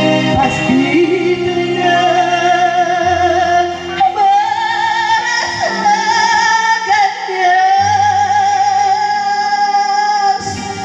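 Live singing with band accompaniment: a voice holding long notes with wide vibrato over a steady bass line.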